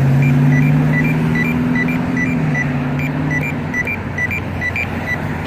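Campbell accessible pedestrian signal push buttons sounding their locator tone: short high beeps repeating in an uneven rhythm, about two to three a second. Under them a vehicle engine hums steadily and fades out about three and a half seconds in.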